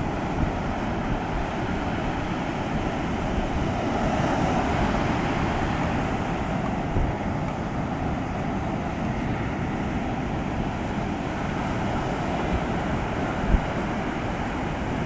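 Ocean surf breaking and washing up a sandy beach at high tide, a steady rushing that swells a little about four seconds in. Wind buffets the microphone throughout.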